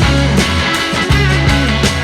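Rock music with electric guitar, bass and drums and a steady beat.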